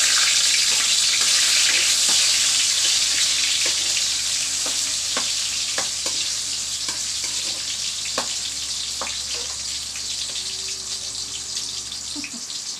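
Ingredients sizzling in hot oil in a wok. The sizzle is loud and slowly dies down. A metal spatula taps and scrapes against the wok now and then.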